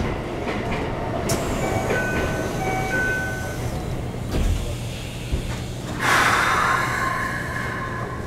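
Inside a Keikyu New 1000 series commuter train at a station stop: the sliding doors close, with a click, a short run of electronic door-chime beeps and a low thud as they shut. About six seconds in a sudden loud hiss sets in, with steady tones under it.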